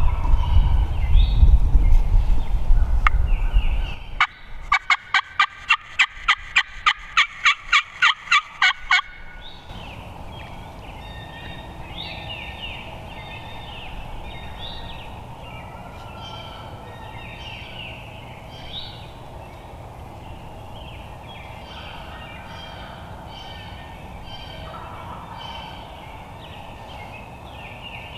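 Turkey calling: a fast, evenly spaced series of about fourteen sharp notes, roughly three a second, from about four seconds in until about nine seconds. Before it there is a loud low rumble, and after it small birds chirp on and off.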